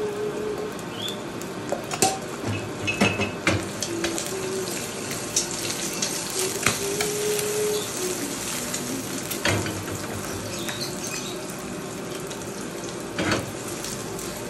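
Eggs frying in oil in a non-stick wok, a steady sizzle. A few sharp clacks of the wok on the gas burner grate as it is moved and shaken.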